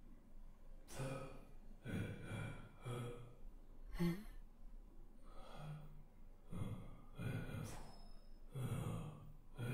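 A cartoon character's voice making a run of short wordless vocal sounds, about one a second, each with a breathy edge.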